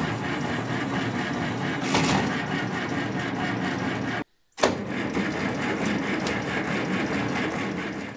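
Starter cranking the J.I. Case 730's diesel engine over without it catching. The cranking breaks off for a moment about four seconds in, resumes, and dies away near the end, which the owner puts down to a weak battery.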